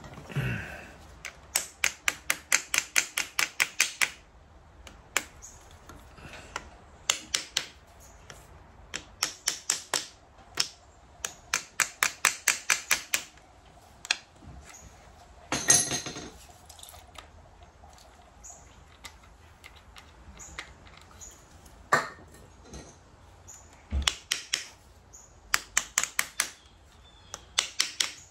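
Ratchet wrench clicking in quick runs of about five clicks a second, working fasteners loose, with a few single metal clanks between the runs.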